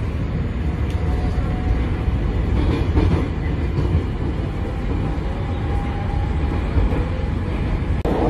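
Bucharest Metro train running between stations, heard from inside the carriage: a steady low rumble of wheels and running gear. Near the end the sound dips for an instant and comes back with a louder hiss.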